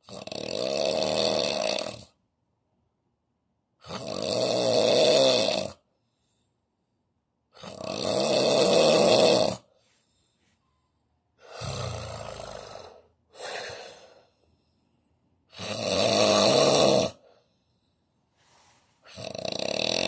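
A man snoring heavily in his sleep, mouth open: a long rasping snore about every four seconds, each lasting around two seconds, with quiet between breaths; about two-thirds of the way in, one snore breaks into a shorter double snort.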